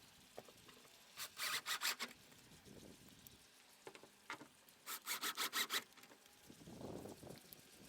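Ratchet wrench clicking in two quick runs of rapid clicks while the bolts of a tailgate lock are driven in.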